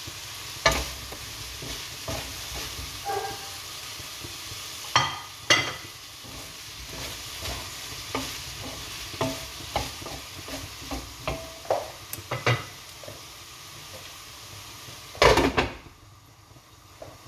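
Chop suey vegetables sizzling in a stone-coated wok while a wooden spatula stirs them, knocking and scraping against the pan. Near the end comes a louder clatter, after which the sizzle drops away.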